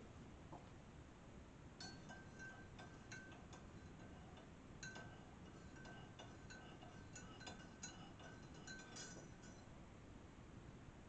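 Spoon stirring in a mug of coffee: a run of light, quick clinks against the side, each ringing at the same pitch. The run starts about two seconds in and stops near the end.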